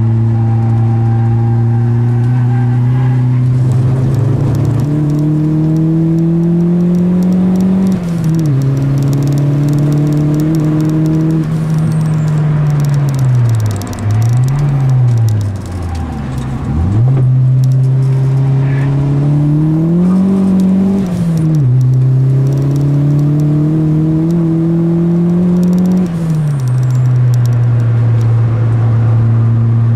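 VW Golf Mk2 Turbo's four-cylinder engine heard from inside the cabin under hard acceleration, revs climbing and dropping sharply at each gear change. Near the middle the revs fall away in a long dip with two quick blips, then climb again through the gears.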